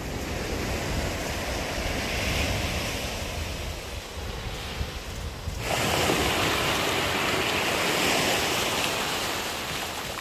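Sea surf breaking and washing up a sandy beach, with wind rumbling on the microphone; the surf becomes suddenly louder a little past halfway.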